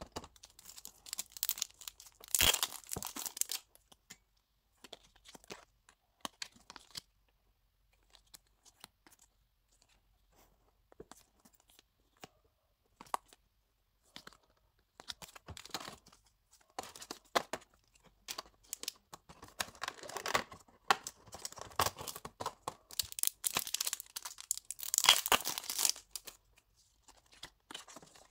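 Paper and plastic packaging crinkling and rustling as photocards and a folded photo sheet are handled, in irregular bursts. A flurry comes at the start, then mostly small clicks and handling for a while, then a longer run of crinkling that is loudest near the end.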